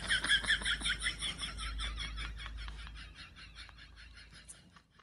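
A cat giving a rapid, even series of short high chirps, about five a second, loud at first and fading out toward the end.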